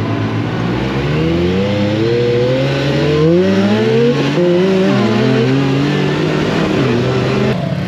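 Off-road buggy engine accelerating hard, its pitch climbing and dropping back several times as the revs rise and fall. The sound changes abruptly near the end.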